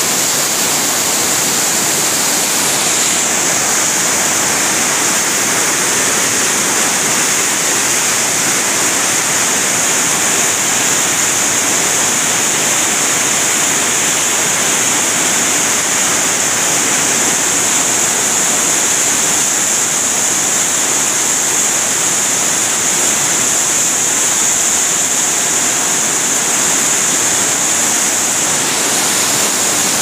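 Fast mountain river rushing in whitewater rapids over boulders: a loud, steady rush of water.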